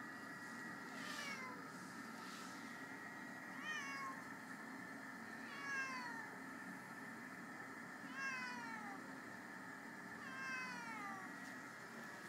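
Ragdoll cat meowing five times, each meow drawn out and falling in pitch, about every two to two and a half seconds: the "I see another cat" meow of a cat that has spotted a rival cat.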